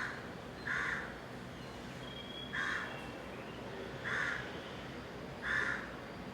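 A bird calling repeatedly: five short calls about a second and a half apart, over a steady low background hum.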